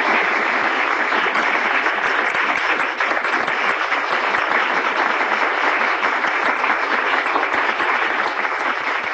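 Audience applauding, dense steady clapping from a hall full of people, easing off near the end.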